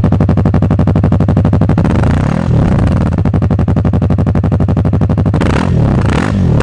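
Yamaha YZF-R3's 321 cc parallel-twin engine idling through its stock exhaust. It is revved briefly twice, about two seconds in and again near the end.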